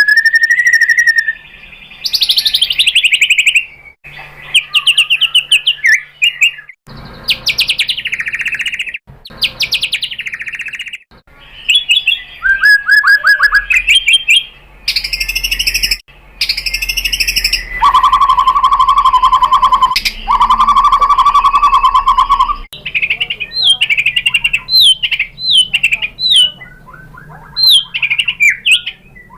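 White-rumped shama singing a varied song of whistled glides, rapid trills and buzzy notes, with a long held note in the middle and quick, sharp chirps near the end. The phrases break off abruptly several times.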